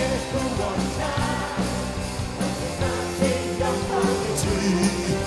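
Live worship band playing an upbeat praise song, with voices singing along.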